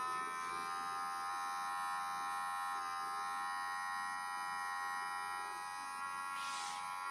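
Maisto Christmas carousel running on a freshly replaced fuse: its small electric motor buzzes steadily under several held electronic tones from its music circuit. A brief hiss comes near the end.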